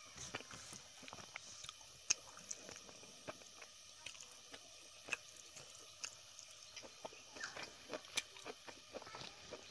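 Close-miked mouth sounds of a person eating rice and cooked leafy greens by hand: irregular wet chewing clicks and lip smacks.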